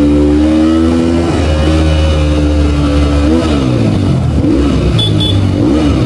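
Motorcycle engine pulling away, its pitch climbing over the first second, then rising and falling a few times as the throttle is worked.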